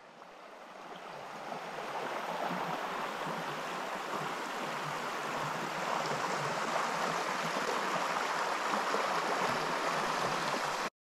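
Creek water running over rocks and through a low concrete weir: a steady rushing that swells over the first couple of seconds and cuts off suddenly near the end.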